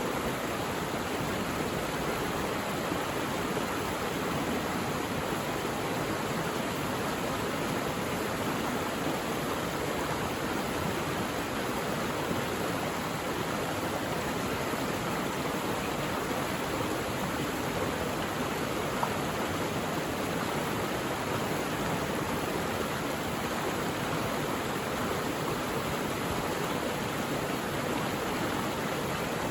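Mountain valley stream, its water running with a steady, unbroken rush.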